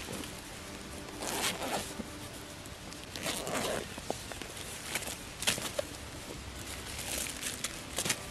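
Backpack being opened and rummaged through: a zipper and rustling, scraping fabric in irregular bursts, with a few sharp clicks.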